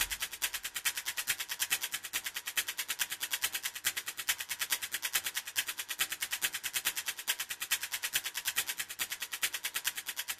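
Countdown sound effect: fast, evenly spaced ticking clicks, fading out near the end.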